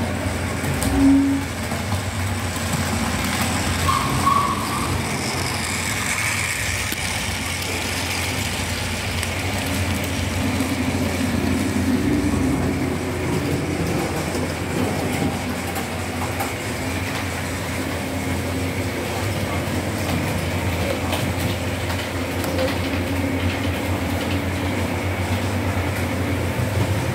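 Model train running on a miniature railway layout: a steady hum from the running locomotive with wheel and rail noise. There are two short tones, one about a second in and a higher one about four seconds in.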